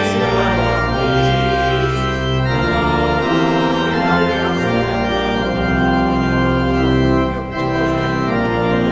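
Church organ playing a slow succession of held chords, changing every second or so, with a brief lift between chords near the end.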